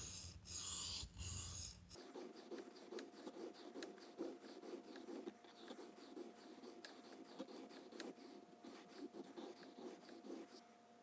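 Steel knife blade stroked back and forth across a wet 400-grit whetstone: rhythmic scraping strokes, about one every second. About two seconds in, the sound changes abruptly to quieter, finer scratching and rubbing with small clicks and a faint steady hum.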